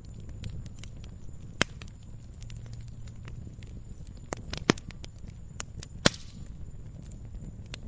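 Burning firewood crackling: irregular sharp pops and snaps over a low steady rumble. The loudest pops come about a second and a half in, and twice more between four and a half and six seconds in.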